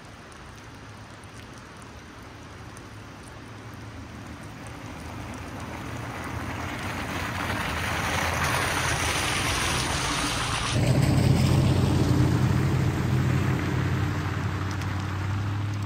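Pickup truck driving on a wet, snow-covered road, with tyre hiss growing steadily louder as it approaches. About two-thirds of the way in, the sound switches abruptly to the truck's engine running close by with a low hum as it pulls away. This engine hum is the loudest part.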